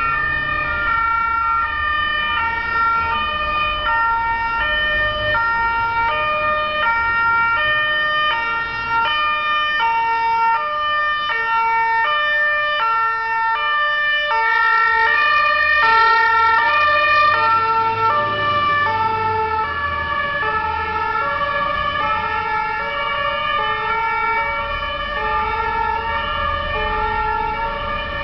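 Two-tone sirens (Martinshorn) of several German fire engines sounding at once. Their alternating high-low notes overlap out of step with each other over the rumble of street traffic, and they are loudest about halfway through as the vehicles pass.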